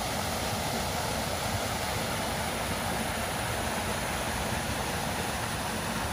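Stormwater pouring over the concrete outlet weir of a flooded dry detention pond: a steady rush of falling water as the pond drains after rain.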